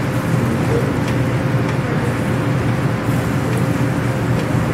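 Sausage and butter sizzling in a stainless frying pan on a portable butane burner, with a few light scrapes of the spatula, over a steady low hum of room machinery.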